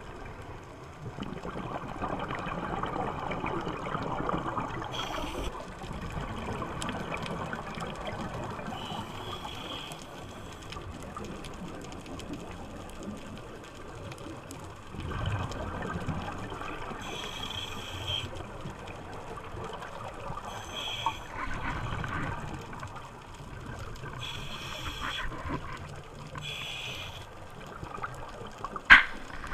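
Scuba regulator breathing heard underwater through a diver's camera: bubbling exhalations surge every few seconds over a steady wash of water noise, with short hissing breaths between them. A sharp knock comes near the end.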